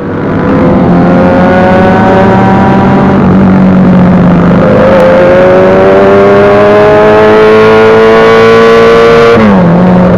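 Motorcycle engine pulling hard under acceleration. Its pitch climbs steadily through a gear, dips sharply at an upshift about nine seconds in, then starts climbing again. It is loud throughout.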